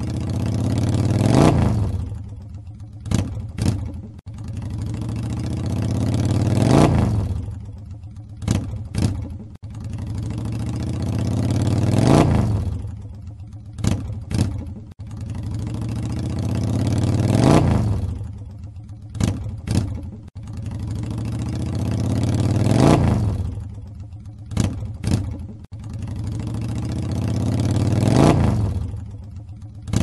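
Motorcycle engine revving up to a peak and dropping back, then two or three quick throttle blips. The same pattern repeats about every five seconds.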